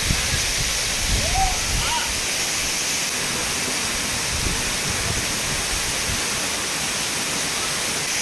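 Steady rushing of a waterfall, an even roar of falling water that doesn't let up.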